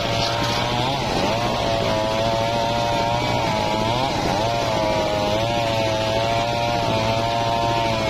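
Homemade bench circular saw sawing gmelina (white teak) wood: a steady machine drone under a high whine that dips briefly in pitch about a second in and again around four seconds.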